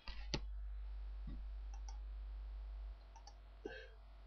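Computer mouse clicking while points are picked in a drawing program: one sharp click about a third of a second in, then a few fainter ticks. A low steady hum runs underneath and drops in level about three seconds in.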